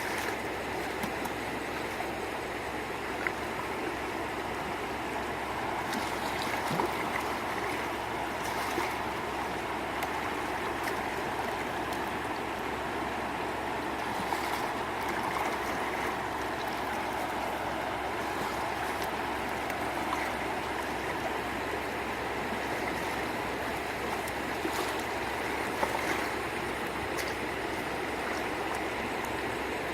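Steady rush of flowing water, with a few brief clicks or knocks.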